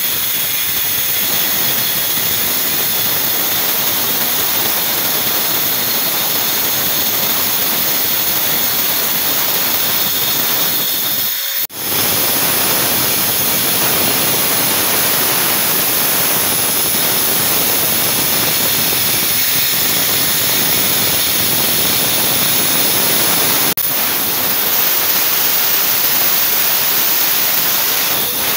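Handheld angle grinder with a diamond blade cutting along the edge of a wall tile fixed in place: a loud, steady motor whine with grinding hiss. The sound drops out for a moment about 12 seconds in, and dips slightly again near 24 seconds.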